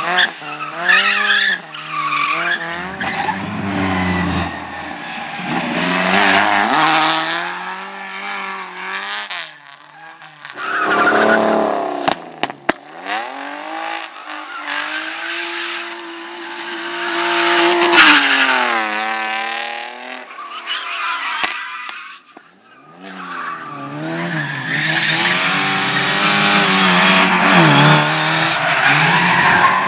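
Competition cars driving a slalom course: engines revving hard up and down with repeated rises and falls in pitch, over squealing, skidding tyres. The sound dips briefly about ten seconds in and again past twenty seconds before picking up again.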